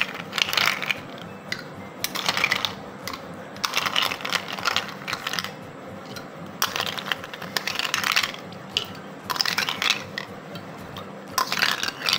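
Ice cubes spooned one after another into glass tumblers of lemon drink, clinking against the glass and the spoon in about six separate bursts.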